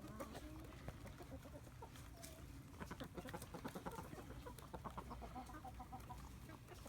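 Domestic chickens clucking softly, many short scattered calls, with a run of short clicks in the middle.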